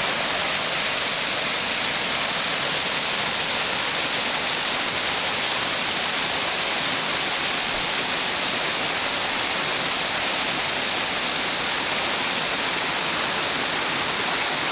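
A creek waterfall with a drop of about 20 feet, running high after days of heavy rain: a steady, unbroken rush of falling water.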